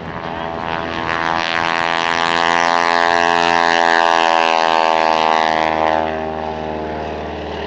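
Grumman Ag Cat biplane's piston engine and propeller making a pass, a steady engine note that swells louder over the first few seconds and falls away about six seconds in as the plane goes by.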